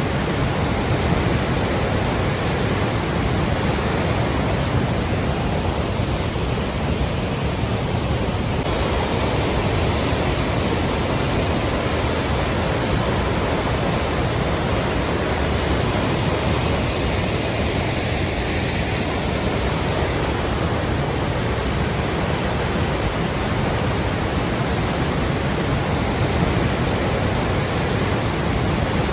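Flowing water rushing steadily, an even, unbroken wash of sound with no changes.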